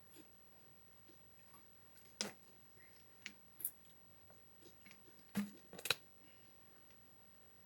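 A few sharp, scattered clicks and light taps of small objects being handled, the loudest pair coming close together about five and a half seconds in.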